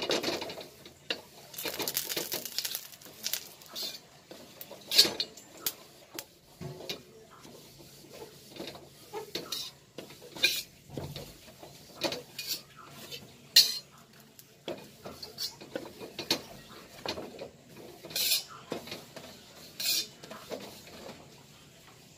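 Metal spatula scraping and clinking against a steel wok as a wad of paper towels wipes lard around the hot pan while seasoning it: irregular scrapes with a few sharper knocks.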